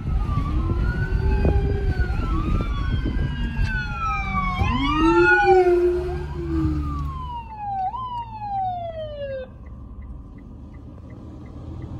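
Several emergency vehicle sirens sounding over one another, their pitches sweeping up and down, over a low vehicle rumble. The sirens die away about three-quarters of the way through, leaving the rumble and a string of short, high beeps about twice a second.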